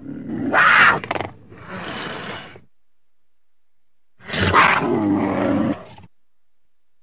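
Cougar (mountain lion) vocalizing: a loud call in the first two and a half seconds, then after a pause of nearly two seconds a second call of about a second and a half.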